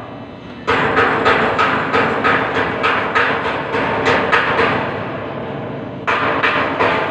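Rapid, even taps of a hammer on metal, about five a second. They start suddenly about a second in, ease off briefly near the end and then pick up again.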